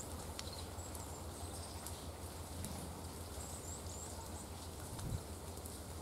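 Faint, very high thin bird calls, a short burst about a second in and another around four seconds, over a steady low rumble, with scattered small ticks and one soft low thump just after five seconds.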